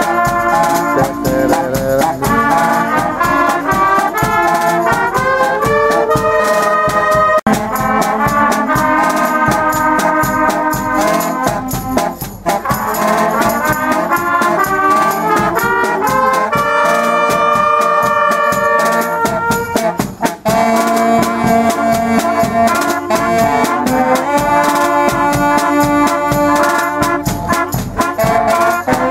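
Brass band playing a tune live, with trumpets and trombones holding and changing chords over a steady beat.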